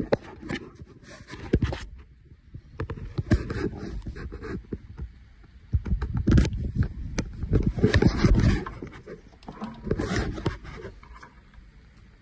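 Handling noise from a power cord being plugged in: rubbing and scraping, with irregular clicks and knocks as the plug is pushed into an extension cord's socket.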